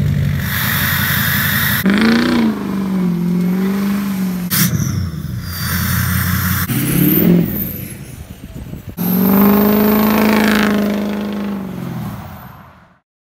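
The 6.0-litre Power Stroke V8 turbo-diesel of a tuned, emissions-deleted 2005 Ford F-250, revving loudly through its exhaust in a run of short cuts, each rev rising and then falling. The sound fades out near the end.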